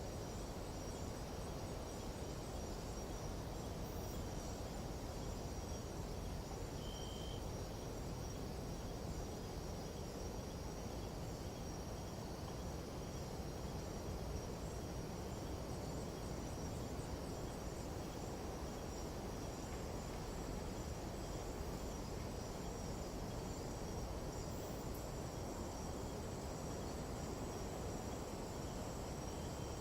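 Nighttime jungle insect chorus, steady high trilling tones, over a constant low rush of wind noise. A single short high note sounds about seven seconds in.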